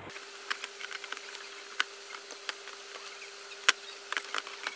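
Light clicks and scratches of hands handling an opened LED TV's circuit boards, plastic parts and cable connectors, with one sharper click about three and a half seconds in, over a faint steady hum.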